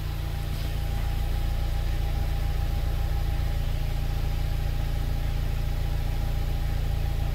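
2014 Volkswagen Jetta's 1.8-litre turbocharged four-cylinder engine idling steadily, heard at the twin exhaust tips.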